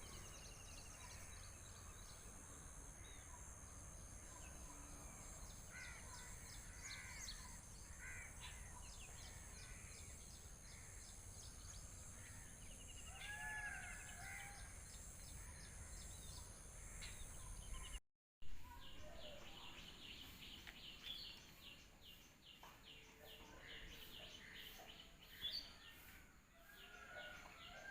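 Faint outdoor birdsong: several birds chirping and calling in short, scattered notes over a low background rumble. The sound cuts out for a moment about two-thirds of the way through, then resumes with louder chirps near the end.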